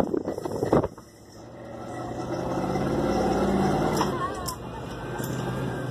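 Off-road vehicle engine revving up under load, rising over about two seconds and then easing back to a steady run. A few loud sharp noises come in the first second.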